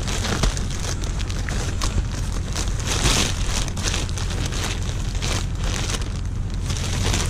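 Plastic trash bags rustling and crinkling as hands rummage through them, a steady crackle of many small clicks.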